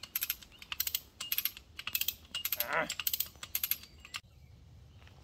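Hand-operated ratchet cable puller (come-along) being worked by its lever, hauling a boulder on a steel cable under load. The pawl clicks in several quick bursts, one burst per stroke of the lever, and stops about four seconds in.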